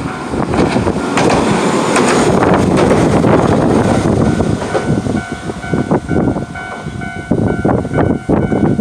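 Hiroden tram running over a level crossing, its wheels and motor noise loud for the first few seconds. The crossing's warning bell rings on and comes through clearly as the train noise fades, about halfway in.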